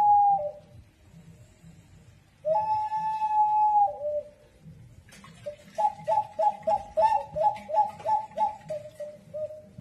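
Black clay animal-shaped whistling vessel of the Peruvian pre-Columbian kind. A whistle ends on a lower note; then a long steady whistle about two and a half seconds in drops to a lower note at its end. From about six seconds in comes a fast warble between two notes, about three a second, trailing off lower.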